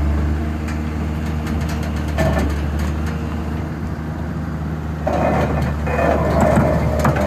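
Heavy diesel engine of an excavator running steadily with a low hum, growing louder and rougher from about five seconds in.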